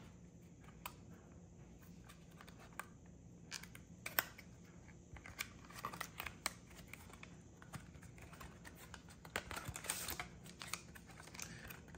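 Faint clicks, taps and rustles of a small cardboard Pokémon card pack being handled and opened by hand, with busier bursts of sharper clicks past the middle and near the end.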